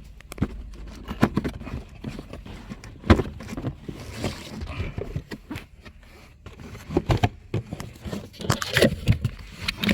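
Irregular clicks and knocks as hard engine parts from a timing belt kit and a water pump are handled, with a brief rustle about four seconds in.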